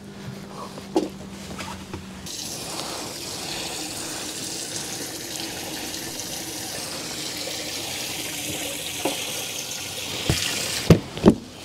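Bass boat livewell being filled: water runs steadily into the open well, starting about two seconds in and stopping about ten seconds in, followed by a couple of sharp knocks near the end.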